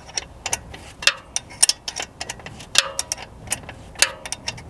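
Metal wrench working a freshly loosened bolt on the motorcycle's rear wheel: a run of sharp metallic clicks and clinks, about four a second, some with a short ring.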